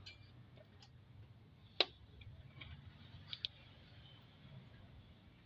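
A few sharp clicks and light ticks of metal engine parts being handled during hand work. The loudest click comes about two seconds in, followed by a quick pair of smaller ones.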